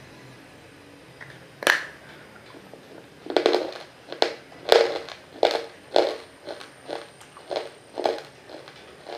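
A water-soaked piece of roasted nakumatt is bitten with one sharp crack a little under two seconds in. It is then crunched between the teeth about every two-thirds of a second: close, wet crunching.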